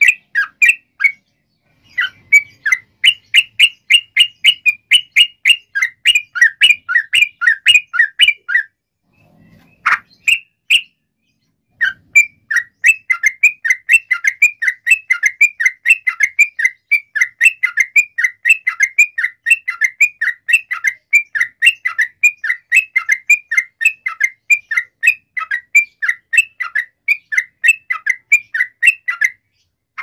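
Yellow-vented bulbul singing long rapid chattering runs of notes, about four to five a second. The song breaks off for a few seconds, with only a couple of single notes, about a third of the way through, then runs on steadily.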